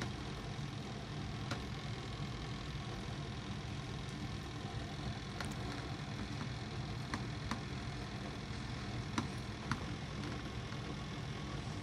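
Toaster oven heating with its timer running: a steady low hum, with scattered sharp ticks at irregular intervals.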